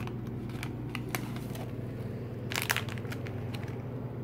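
Hands handling clear plastic cups and ingredient packaging: light crinkling and scattered small clicks, with a short cluster of crinkles about two and a half seconds in. A steady low hum sits underneath.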